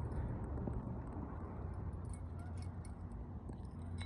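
Spinning reel being cranked in while a hooked fish is fought, giving faint irregular ticking over a low rumble of wind and handling noise on the microphone.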